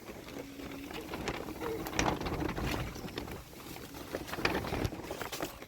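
Birds calling, with scattered short knocks and clicks.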